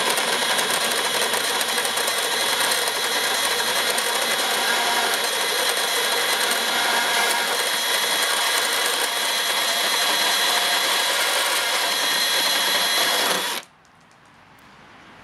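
Makita XGT PB002G 40V brushless portable bandsaw running at about half speed, its worn, dull blade cutting steadily through a metal bar. The sound stops suddenly near the end as the cut finishes and the saw goes quiet.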